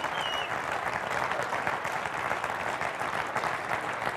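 Audience applauding steadily, with one short whistle near the start.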